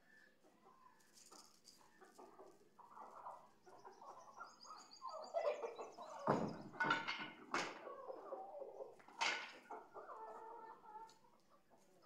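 A flock of Aseel chickens clucking and calling as they feed, with a few sharp knocks in the middle that are the loudest sounds.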